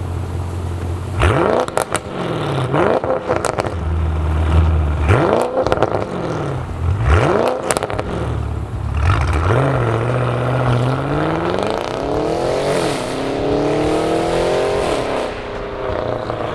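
Audi S6's twin-turbo V8, breathing through catted APR downpipes, idling and then blipped sharply several times, with sharp cracks as the revs drop. It then pulls away with a long climb in revs that falls off near the end.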